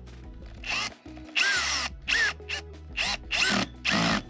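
Makita brushless cordless drill-driver running in six short bursts, spinning a terminal screw down on a 12-volt distribution panel to clamp a wire.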